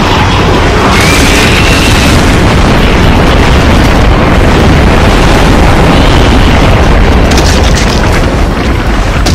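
A loud, dense, continuous wall of deep booming rumble and crashing from the sound-effects track of an animated monster battle.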